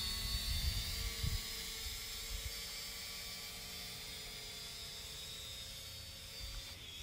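Drone's motors and propellers buzzing steadily in flight, heard from its own onboard camera, a high whine with several tones held close to constant pitch. Some low rumble comes through in the first second and a half.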